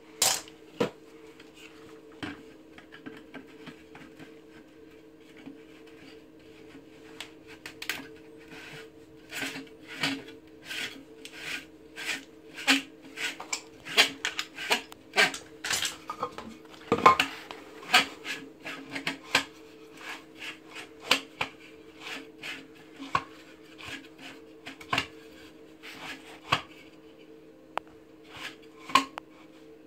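Pea gravel being handled and set around a shower drain by hand: small stones clicking and clattering in irregular taps, over a steady low hum.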